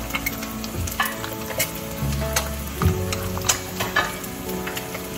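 A spatula stirring and scraping food in a hot pan, with clicks of metal on the pan over a light sizzle.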